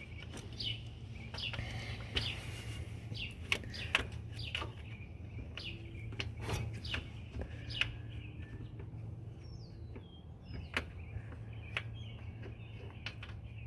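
Scattered metal clicks and clinks from a hand ratchet and tools working on a car's starter bolts, irregular and spread out over the whole stretch. A steady low hum runs underneath, with birds chirping in the background.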